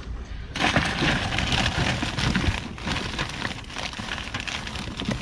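Clear plastic garbage bags rustling and crinkling as they are pushed aside and handled, a dense crackle that starts about half a second in.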